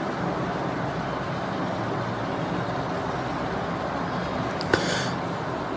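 Steady background noise: a low hum with a hiss over it, and one short click just before the end.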